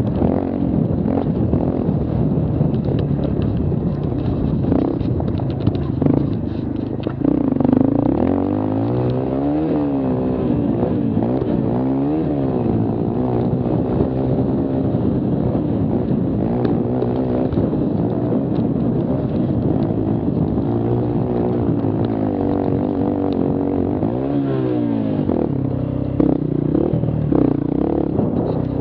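A mini quad's engine runs hard, its pitch rising and falling repeatedly as the rider works the throttle. Scattered knocks and rattles come from the machine crossing rough ground.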